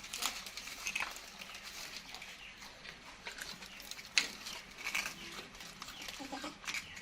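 Baby monkey chewing crispy rice cake, making irregular crunching crackles and clicks that sound like grinding teeth, with a sharper crack about four seconds in.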